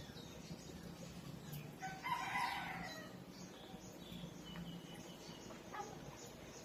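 A rooster crows once, about two seconds in: a single loud call lasting about a second and falling in pitch. Faint bird chirps sound around it.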